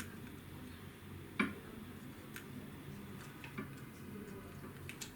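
Scattered small clicks and taps from hands working on an open laptop during a RAM upgrade, with one sharper click about a second and a half in.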